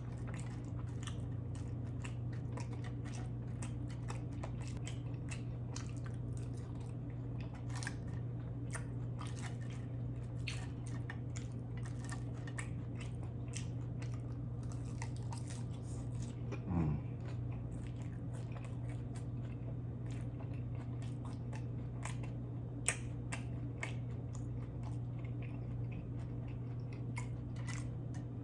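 Close-miked chewing and biting of food, with many short wet mouth clicks and smacks, over a steady low hum. About seventeen seconds in comes a brief hummed sound falling in pitch.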